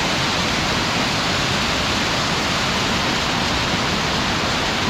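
A waterfall rushing as a loud, steady, even roar of falling water.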